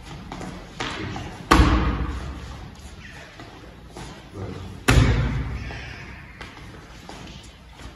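Boxing gloves smacking against a focus mitt in a boxing drill: two hard, loud hits about a second and a half in and again near the five-second mark, with a few lighter knocks between. Each hit echoes on in the bare hall.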